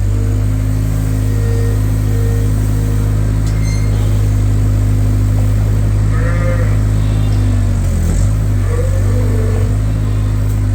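Sheep bleating a few times, loudest about six and nine seconds in, over a loud, steady low machine drone that dips briefly about eight seconds in.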